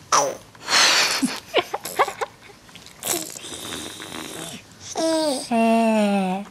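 A baby making a breathy, wheezing funny noise in short huffs, followed about five seconds in by two drawn-out voiced calls that slide down in pitch.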